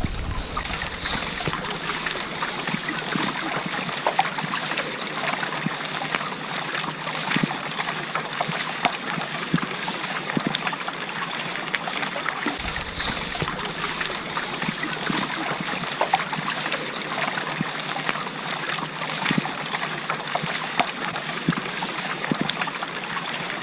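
Steady rain falling on water, a continuous hiss dotted with many small ticks of individual drops.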